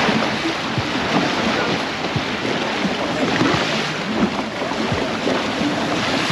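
Water churning and splashing around a jet car in the shallows, with wind buffeting the microphone, over a low steady hum from the jet car's engine.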